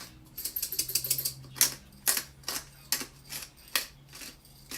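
Hand-twisted pepper mill grinding, a run of short rasping, clicking turns about two a second.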